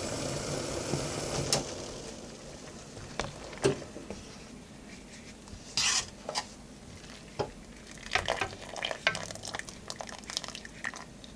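A steady hiss fades out over the first two seconds. Then metal kitchen utensils clink, knock and scrape against a pot and dishes, in scattered single strikes and a busier cluster near the end.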